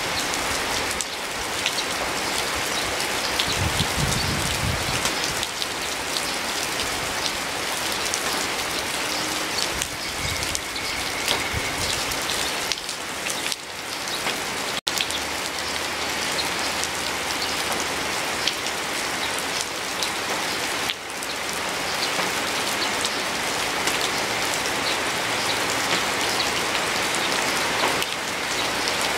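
Steady rain falling, a dense patter of many small drops, broken by a split-second dropout about halfway through.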